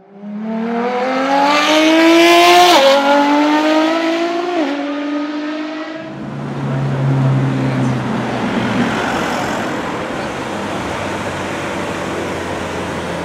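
A high-revving sports-car engine accelerating hard. Its pitch climbs and drops sharply twice at quick upshifts, and it cuts off abruptly about six seconds in. After that come a low hum and then a steady, even rush of street noise.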